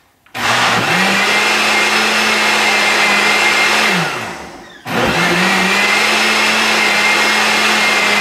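Countertop blender pureeing a pitcher of soup on its puree setting: the motor spins up, runs steadily, winds down about four seconds in, then starts again a moment later and keeps running.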